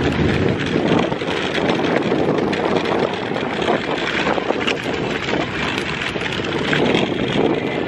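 Steady rushing, rattling noise of riding across a dirt lot, with wind buffeting the microphone.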